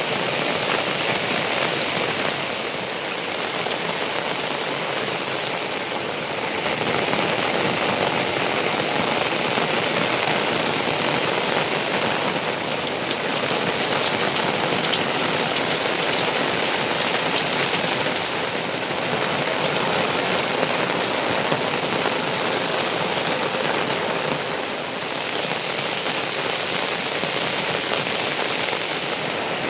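Heavy rain falling steadily, a dense even hiss that swells and eases slightly every few seconds.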